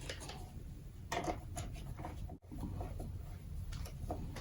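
Faint, scattered clicks and rustles of wire and small tools being handled while a jumper wire is fitted to a fuse holder in a control panel.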